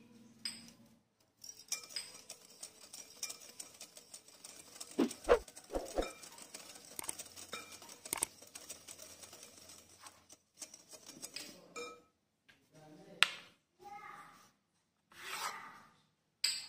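A glass mixing bowl and kitchen utensils clinking and scraping while dry bread ingredients are added, with a few low thumps about five seconds in. Several shorter, separate knocks and rustles follow near the end.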